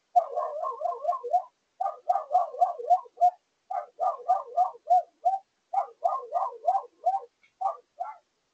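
Small dog barking rapidly and repeatedly, about four sharp barks a second in runs with short breaks between them.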